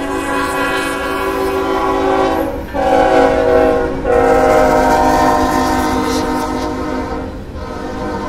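CSX freight locomotive's air horn blowing its chord for a grade crossing in long blasts, broken briefly about two and a half and four seconds in, while the lead diesels pass at speed. The engines' low rumble sits under the horn, and the covered hopper cars rolling behind them add wheel clatter.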